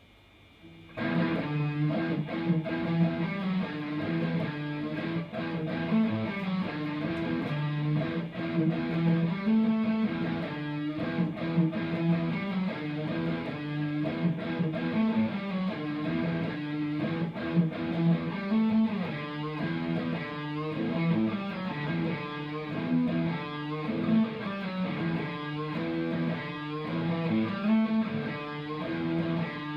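Electric guitar, an Ibanez RG, played through a Marshall MG101CFX combo amplifier: a continuous run of picked and strummed notes that starts about a second in.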